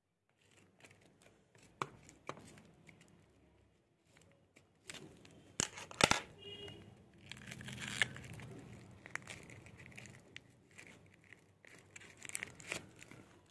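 Scissors snipping into a taped notebook-paper parcel, then the paper and tape being torn open and crinkled. There are a few sharp clicks along the way, the loudest a pair about six seconds in, and a longer stretch of tearing and rustling after them.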